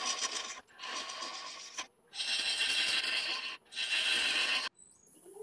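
A 5/8" bowl gouge cutting end grain on a yew blank spinning on a wood lathe: four scraping cuts of about a second each, each starting and stopping abruptly.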